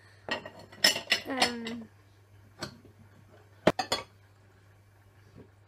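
Ceramic bowls clinking and knocking as they are handled and sorted: a scattered run of sharp clinks, with clusters about a second in and about four seconds in.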